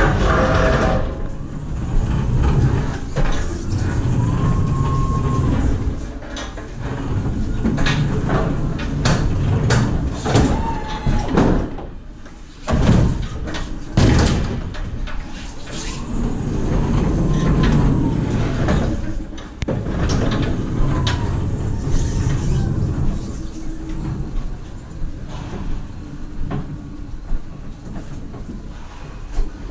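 Electric pallet stacker loaded with stacked plastic pallets, driven over a metal checker-plate trailer floor: a steady rumble and rattle from its wheels and load, with the drive motor's whine rising and falling several times. Two sharp knocks come near the middle.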